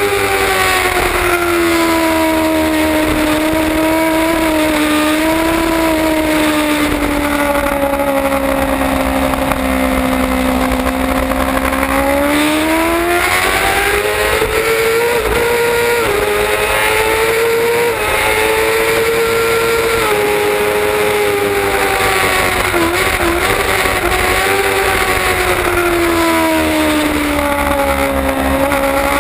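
Kawasaki ZX-6R 636 inline-four engine running hard at racing speed, its pitch sinking slowly for the first ten seconds, climbing sharply after about twelve seconds, then rising and falling again through the corners. A constant rush of wind over the bike-mounted microphone lies under it.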